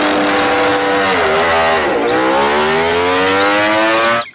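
Ducati MotoGP racing motorcycle's V4 engine running at high revs. Its pitch drops about a second in, then climbs steadily for about two seconds as the bike pulls away, and the sound cuts off suddenly near the end.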